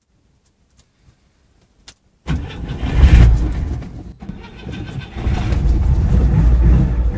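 Citroën GS air-cooled flat-four engine starting about two seconds in after a few faint clicks. It runs up loudly, dips for a moment, then settles into a steady loud run.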